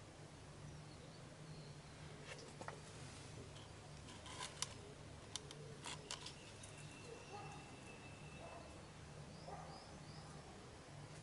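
Faint handling noise: a few sharp clicks and rustles as potted pitcher plants are touched and moved, over a low steady hum. A few faint high chirps sound near the end.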